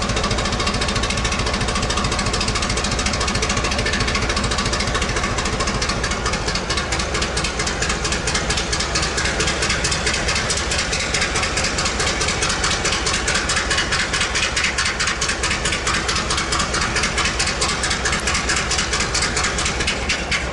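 Diesel locomotive engine idling with a fast, even knocking beat that grows clearer about six seconds in.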